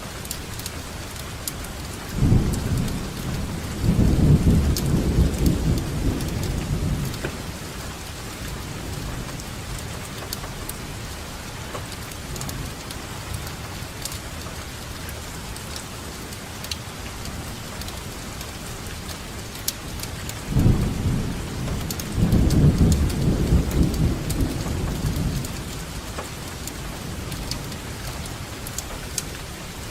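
Steady heavy rainfall with scattered sharp drop ticks. Two low rumbles of thunder come through it, one a couple of seconds in and one about two-thirds of the way through, each lasting about five seconds.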